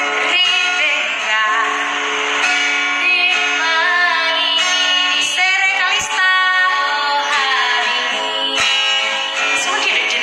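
A woman singing a song to acoustic guitar accompaniment.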